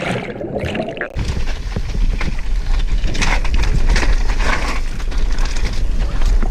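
Downhill mountain bike riding a trail: wind buffeting the microphone, with tyre noise and frequent knocks and rattles over rough ground, getting loud about a second in.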